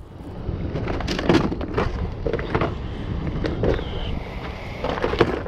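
Tackle being rummaged through in a plastic storage tub: irregular knocks and clatters of plastic boxes and gear over a steady low rumble.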